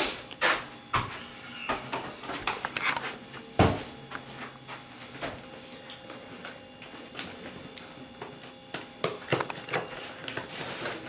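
Hands handling and picking at a taped cardboard shipping box: scattered scrapes, taps and knocks on the cardboard, with one louder knock about three and a half seconds in.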